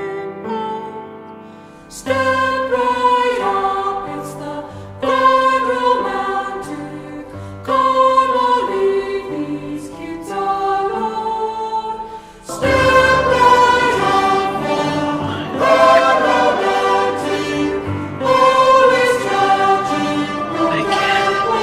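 A song with layered, choir-like sung harmonies over instruments, holding long notes. It swells about two seconds in and turns fuller, with bass added, a little past halfway.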